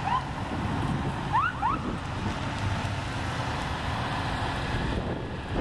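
Passing vehicles in a slow procession, a steady low engine and road rumble with wind buffeting the microphone. About a second and a half in come a few short rising chirps.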